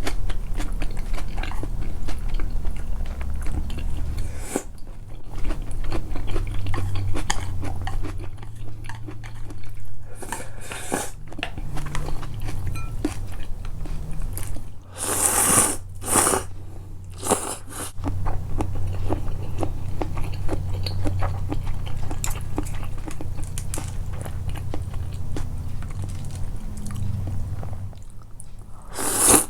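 Close-miked chewing of food: a steady wet mouth sound with fine crackle. Several short, sharper, louder bites come about halfway through.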